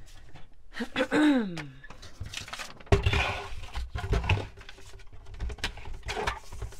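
A plastic paper trimmer is set down on a cutting mat with a knock and shifted into place, with rustling and handling clicks as a sheet of coffee-dyed paper is laid on it. Earlier, a short falling hum from a voice.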